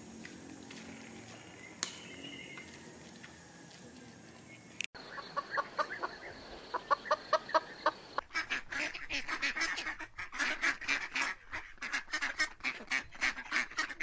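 Faint steady background for the first five seconds, then a hen clucking in short spaced calls. From about eight seconds in, domestic ducks quack rapidly and continuously.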